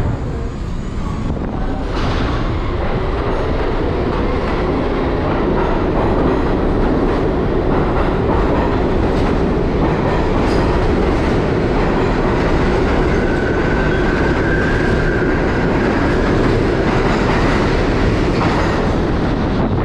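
1964 Budd-built R-32 New York City subway train pulling out of an underground station, its wheels and running gear making a loud continuous running noise as the cars pass close by. The noise steps up about two seconds in as the train gets moving, and a faint high whine sounds for a few seconds past the middle.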